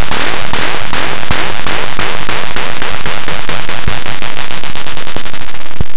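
Very loud, heavily distorted electronic noise crackling in regular pulses that speed up steadily into a rapid rattle, then cut off suddenly at the end.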